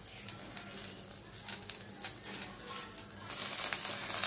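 Chicken drumsticks sizzling and crackling on the wire rack of an electric grill. About three seconds in the sizzle turns into a louder, steady hiss.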